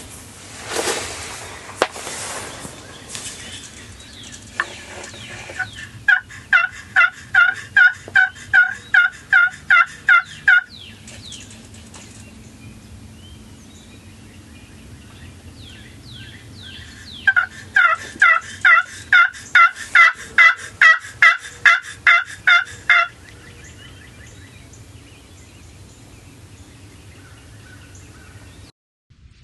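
Two long series of hen turkey yelps, evenly spaced at about three notes a second, each series lasting four to six seconds, the second one louder. A short rustling hiss comes before them.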